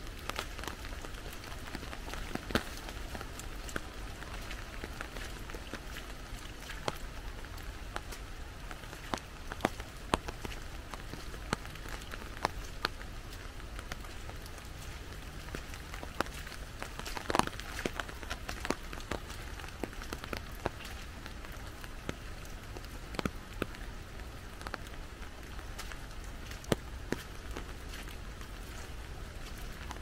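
Rain pattering on an umbrella held overhead: a steady patter with scattered louder single drops tapping at irregular intervals.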